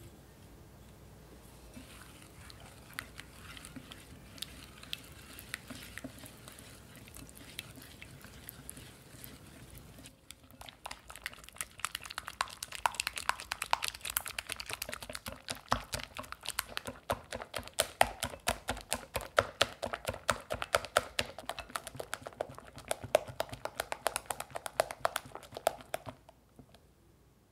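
Wire whisk beating a thick cream cheese and cream mixture in a glass bowl, with wet stirring and scattered light taps at first. From about ten seconds in it turns to fast, steady whisking, the wires clicking rapidly against the glass, and it stops shortly before the end.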